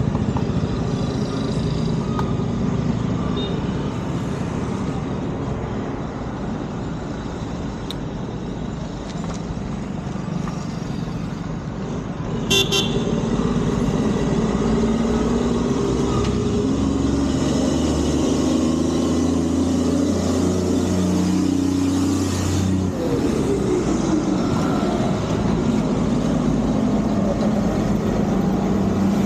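Road traffic with steady engine and road noise, and a short vehicle horn toot about twelve seconds in. A deeper, louder drone of a vehicle runs through the later part.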